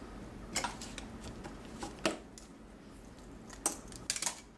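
Hands handling small tools and parts on a tabletop: a few light clicks and taps, the sharpest about two seconds in and a quick cluster of them near the end.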